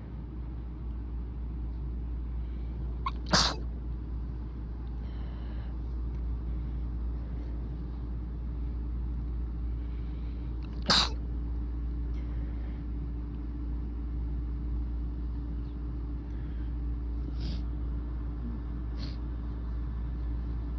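A person sneezing from allergies: two loud, sharp sneezes about seven seconds apart, the first about three seconds in and the second about eleven seconds in, then two much fainter short sounds near the end. A steady low hum runs underneath.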